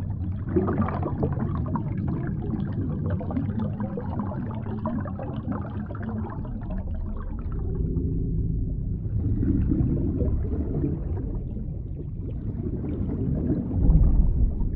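Muffled water noise with low rumbling and gurgling, as heard through a camera's housing underwater, with a louder swell near the end.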